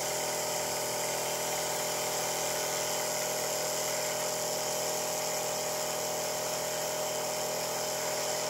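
Compressor nebulizer for aerosol therapy running steadily: a constant motor hum with a steady tone over a hiss, as it keeps pushing out medicated air.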